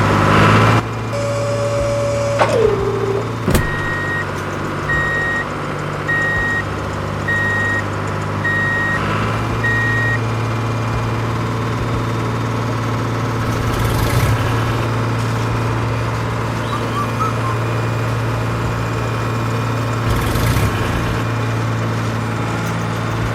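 Tractor engine running steadily with a constant low hum. Six short, evenly spaced reversing beeps sound from about four to ten seconds in. A brief held tone slides down in pitch near the start.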